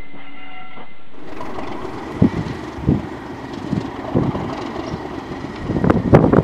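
Heritage railway coaches rumbling past for about the first second. Then a British Rail Class 37 diesel locomotive, with its English Electric V12 engine, runs with a faint steady whistle, while irregular thumps of wind buffet the microphone.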